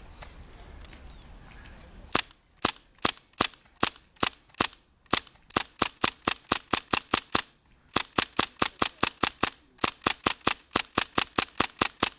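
Tippmann M4 airsoft rifle, run on high-pressure air, firing a long string of sharp single shots, about three to five a second, with a few short pauses, starting about two seconds in.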